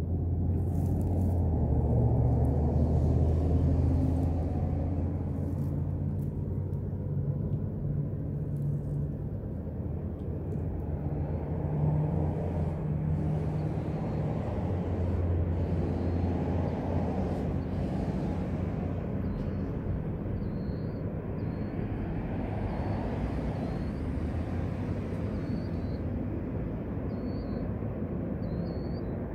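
Road traffic: passing vehicles make a low rumble, loudest in the first few seconds and swelling again midway. Short high chirps repeat through the second half.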